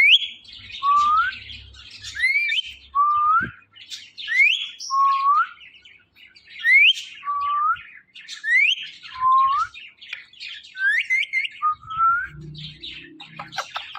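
Pet parrot whistling a two-note phrase, a high rising whistle followed by a lower rising one, repeated about six times over softer chirping.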